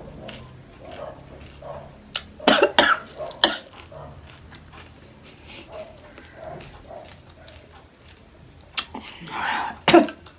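A woman coughing and clearing her throat while eating: a cluster of sharp coughs about two and a half seconds in and more near the end, with quiet chewing between. The coughing comes from chilli-hot, sour panipuri juice catching in the throat.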